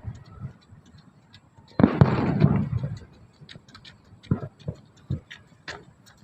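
Fireworks going off: a sudden loud burst about two seconds in with about a second of dense crackling, then scattered single pops and crackles.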